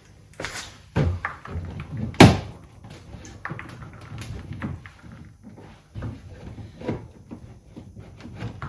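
Irregular plastic knocks and clunks as clips and trim on a BMW M2's rear bumper are pulled and pried at, the loudest about two seconds in. The centre piece is held fast by wedge-shaped barb clips that won't come out.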